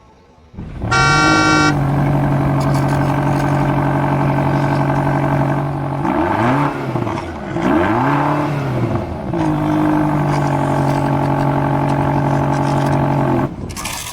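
Electronic sound effects from a battery-powered toy vehicle: a short horn beep, then a steady engine hum whose pitch swoops down and up a few times midway, cutting off suddenly near the end.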